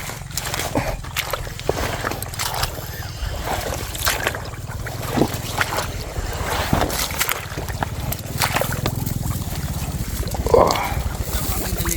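Water sloshing and splashing, with scattered short knocks and clicks over a steady low rumble.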